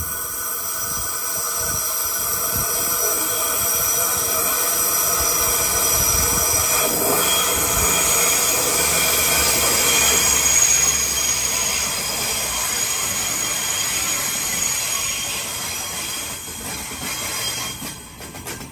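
Waratah double-deck electric train's wheels screeching loudly on the tightly curved platform track, several steady high squeal tones over the running rumble. The screech builds to its loudest about ten seconds in and fades near the end as the cars roll past.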